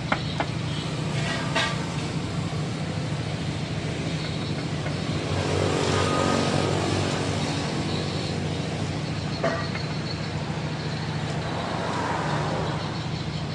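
Steady motor-traffic hum that swells as a vehicle passes about halfway through, with a few sharp clicks.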